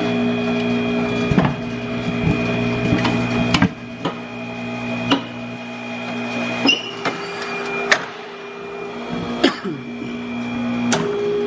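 Tire changer's turntable motor running in spells while a tire is worked onto the rim, its steady hum stopping and starting, with several sharp metal knocks and clanks in between.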